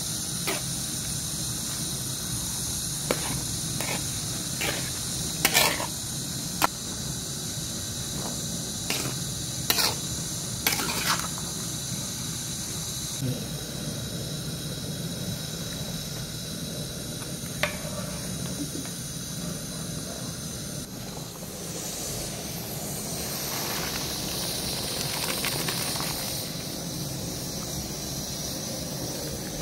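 Metal spoon clinking and scraping against a cooking pot, several sharp clicks in the first half, over the steady hiss of a lit camping gas burner. From about 22 s a broad rushing sound swells: the cooking water being poured off boiled rice into a plastic colander.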